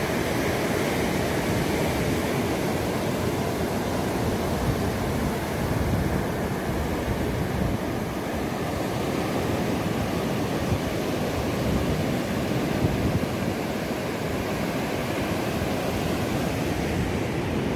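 Ocean surf breaking and washing up a sandy beach, a steady rushing noise, with wind on the microphone.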